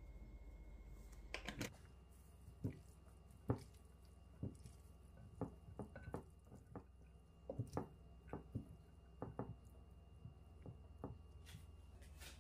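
Metal fork tapping and clicking against a glass food container while tossing cooked spaghetti, a series of light, irregular clicks.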